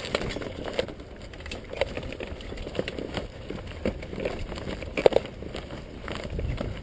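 Low wind rumble on a hang glider's frame-mounted camera microphone, with scattered light clicks and rattles from the glider frame. A louder cluster of clicks comes about five seconds in.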